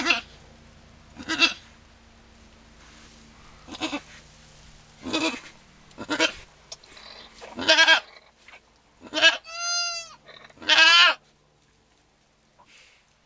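Goats bleating around a newborn kid: a string of short bleats every second or so, then about nine seconds in a longer, higher bleat held for about a second, followed at once by a shorter wavering one.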